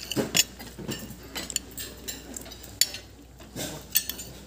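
Spoons and forks clinking and scraping against plates and bowls during a shared meal, with several sharp clinks scattered through.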